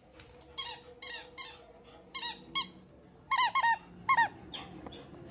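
A rubber squeaky ball squeaking as a dog bites and chews on it: about nine short squeaks in small clusters.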